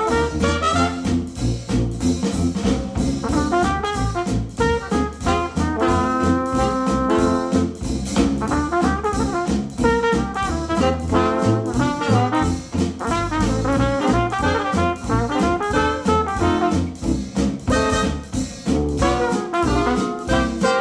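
Instrumental jazz-style music with brass horns over a steady beat and strong bass, played back through Polk Audio R100 bookshelf speakers driven by a NAD C 338 amplifier.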